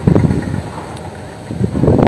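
Wind buffeting the microphone: an uneven low rumble that eases in the middle and grows strong again near the end.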